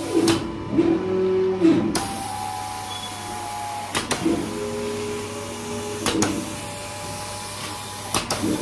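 Drive motors of a CNC gantry hot melt glue spraying machine whining as the spray head travels over the table, the tone stepping and gliding as the moves change. Sharp clicks come about every two seconds.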